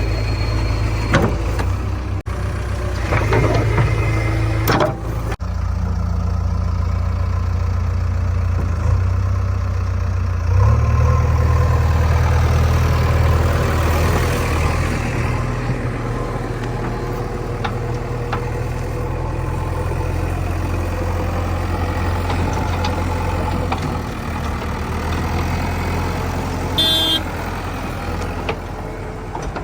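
Diesel engine of a JCB 3DX backhoe loader running steadily, working harder from about ten seconds in, with a few short knocks.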